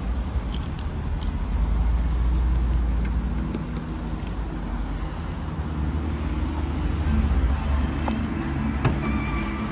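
Low rumble of cars and traffic, with a few light clicks. About nine seconds in there is a click, then a faint steady high tone.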